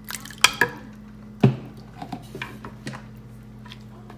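Kitchen utensils knocking and clicking against a wooden mortar as a metal ladle pours sauce in and wet papaya salad is stirred. There is a cluster of clicks near the start and one loud knock about a second and a half in.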